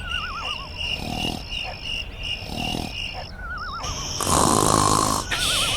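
Cartoon-style snoring sound effect: rhythmic snores about every second and a half, with a wavering, falling whistle on the out-breath, over a steady pulsing chirp like crickets. A louder rushing noise cuts in for about a second near the end.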